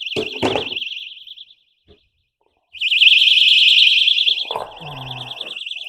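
Very loud electronic alarm sounding a high, fast-warbling tone. It dies away in the first second and a half, starts again loud about three seconds in, then carries on more quietly from about four and a half seconds, with a few knocks alongside.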